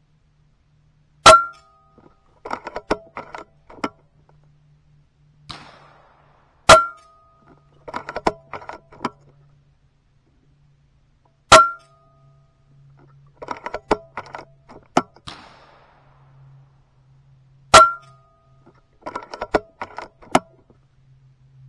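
Kalibrgun Cricket II .22 PCP air rifle fired four times, about five to six seconds apart, each shot a sharp crack with a brief ring. Each shot is followed a second or two later by a quick run of mechanical clicks as the side lever is worked to cock the rifle and chamber the next pellet. A faint low hum underneath.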